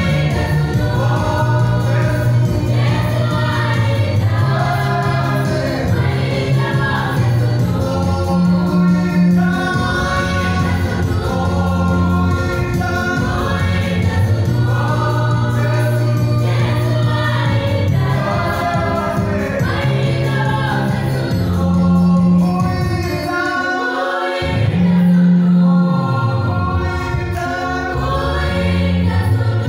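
Youth church choir of mixed male and female voices singing a gospel song together, with a steady low bass line under the melody that drops out briefly near the end.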